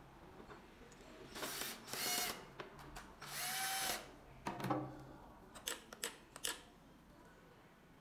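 Cordless drill driving screws into a smart door lock's panel, its motor running in three short bursts, the last the longest. A few sharp clicks and knocks follow.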